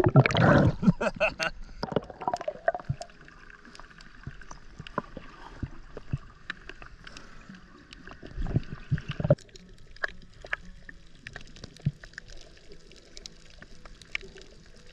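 Underwater sound around snorkelers: splashing and churning water in the first second as the camera dips below the surface, then muffled bubbling with a scatter of small clicks and crackles. A louder low gurgle comes about eight and a half seconds in.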